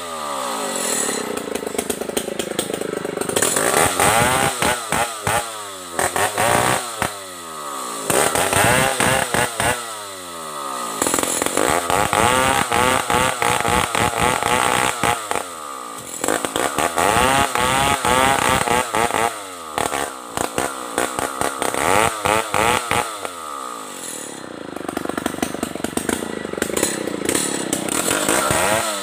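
Stihl 070 two-stroke chainsaw cutting into the base of a large tree, the engine running at high revs under load with its pitch sagging and recovering as the chain bites into the wood. It eases off to a lower pitch for short spells between passes, the longest about two-thirds of the way in, before winding up again.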